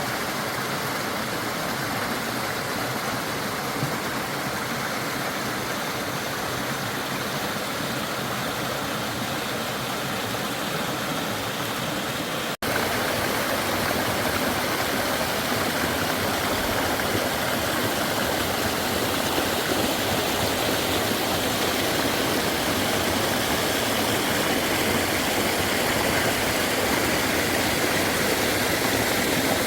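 Stream water flowing, a steady even rush. It cuts out for an instant about twelve seconds in and comes back a little louder.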